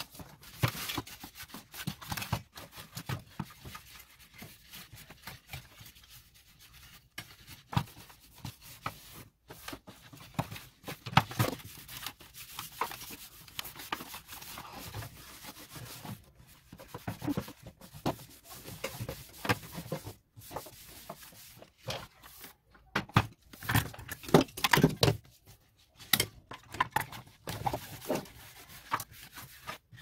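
A cloth rubbing and wiping over the plastic casing of an electric fan heater, with irregular knocks and clicks as the heater is handled and turned over. The handling knocks are loudest a little past the middle.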